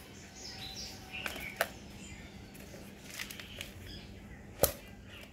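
Potting soil scooped with a small hand trowel and black plastic plant pots handled, giving a few short sharp knocks and scrapes; the loudest knock comes about four and a half seconds in.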